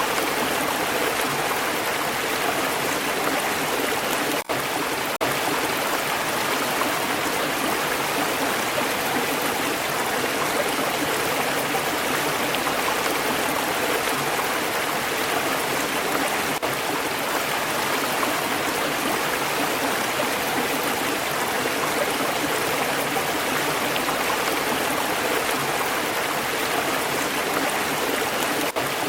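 Stream water flowing and burbling over rocks, a steady even rush with one momentary dip about four and a half seconds in.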